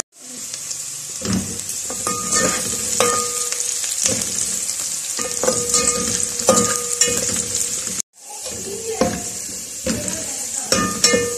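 Sliced onions frying in ghee in a metal pot, sizzling steadily, while a spoon stirs and scrapes them, its knocks against the pot ringing briefly several times.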